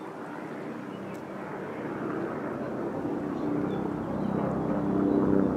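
A distant engine hum that grows steadily louder and peaks near the end.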